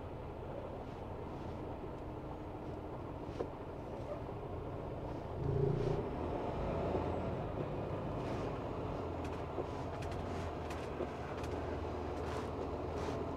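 Semi truck's diesel engine running at a low, steady rumble, heard from inside the cab. It swells briefly about five and a half seconds in, with a few light clicks in the second half.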